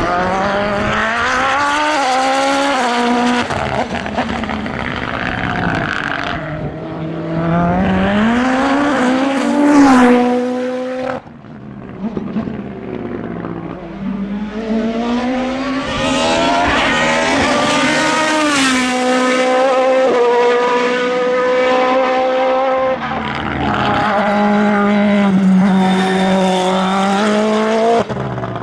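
Hillclimb sports-prototype race car engines at full throttle. The pitch rises through each gear and drops at the shifts, over two passes that are separated by an abrupt break about eleven seconds in.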